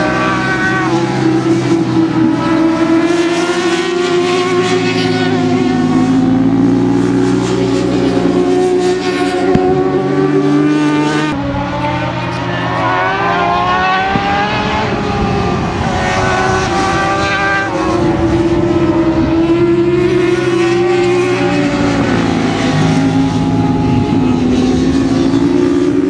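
Several sport motorcycles racing past at high revs, their engine note climbing through the gears and dropping back at each shift and corner. The sound changes abruptly twice, where the footage is cut.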